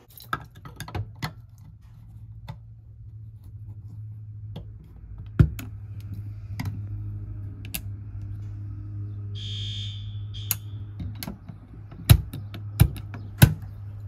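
Sharp metal clicks and clacks from an Edwards 270 fire alarm pull station being opened and reset with a screwdriver, the loudest three coming close together near the end as its front is shut, over a steady low hum.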